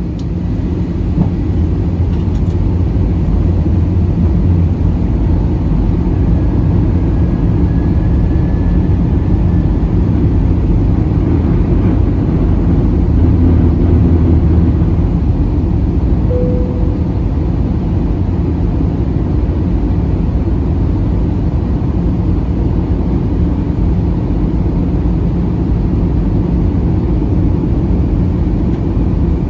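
Airbus A320 cabin noise during descent: a steady, loud low rumble of engines and airflow heard from inside the cabin. A faint whine drifts in about a quarter of the way through, and a short tone sounds just past halfway.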